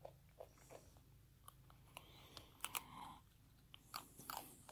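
A wallaby chewing corn, with faint irregular crunching clicks several times a second.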